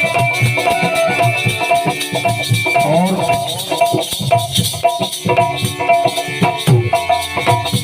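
Instrumental interlude of a bhajan: steady drum beats with shaker-like rattling percussion under a sustained melody line, without singing.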